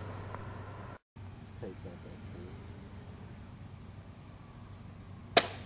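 Faint steady insect chirring, then near the end a single sharp smack: the foam Twin Easystar RC plane hitting the pavement in a hard landing with its motor cut off too early.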